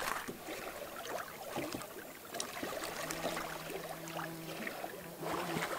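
Faint lakeshore ambience of small waves lapping on the rocky shore, with a steady low hum for about two seconds in the second half.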